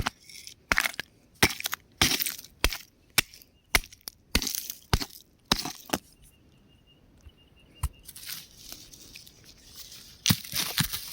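Crumbly rock cracking and breaking apart in a string of sharp, irregular cracks and crunches. A quieter pause comes about two-thirds of the way through, then denser crumbling near the end.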